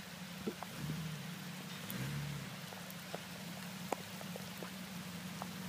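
Steady rain with scattered drips and small taps, over the low, steady hum of a Jeep Wrangler TJ's engine as it crawls slowly over rocks. The engine note rises briefly about two seconds in.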